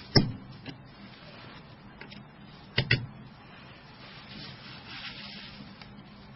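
Small screws being unscrewed and lifted out of a Nokia N90's plastic casing with a Torx driver and tweezers: a few sharp clicks and light taps of metal tool on plastic, including a quick double click about three seconds in.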